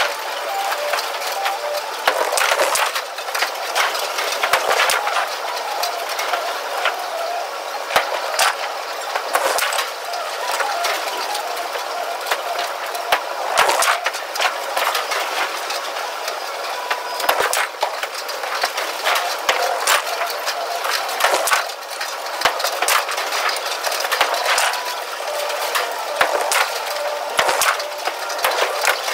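Bowling alley clatter: a dense, unbroken run of sharp knocks and clacks from pins being struck and balls hitting the pin decks, over a steady din of rolling balls and pinsetter machinery.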